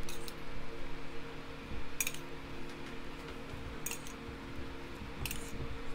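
Light clinks of a utensil against a dish, four in all, spaced roughly one and a half to two seconds apart, as butter is spread on baked ensaymada buns.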